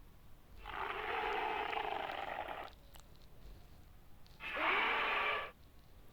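Gojirasaurus creature sound effect: two raspy roars. The first lasts about two seconds and the second, shorter one comes about four seconds in.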